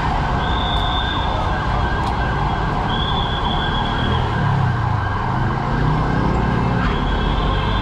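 City street traffic: a steady rumble of vehicle engines. A high, flat tone sounds for about a second at a time, every few seconds.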